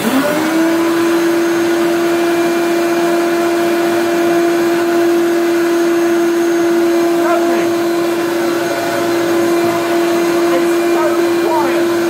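Hoover Turbopower U1060 upright vacuum cleaner switched on: its motor spins up within a moment to a loud, steady howl with one strong held tone. The machine is due a service, with a cooling fan that needs cleaning and bearings that need oil.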